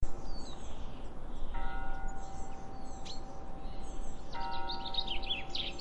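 A bell is struck twice, about three seconds apart, each stroke ringing on as a steady chord of tones. Small birds chirp and sing throughout, with a quick run of chirps near the end, over a low steady background rumble.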